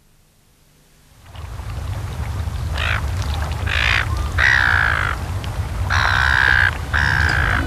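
About five loud shorebird calls, each under a second long, over a low steady rumble that comes in about a second in.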